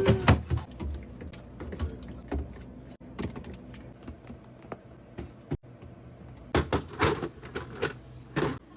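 Fridge restocking handling: scattered sharp clicks and knocks of containers and items being set down and moved, with a quick cluster of several knocks late on and one more near the end.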